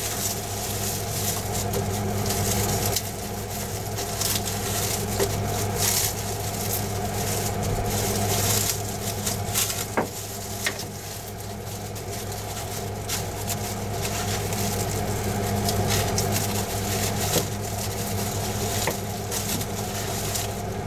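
Irregular soft scratching and dabbing of a hand tool working resin into wet fiberglass cloth, pressing the air out of the layup, over a steady low hum. A single sharper click comes about halfway through.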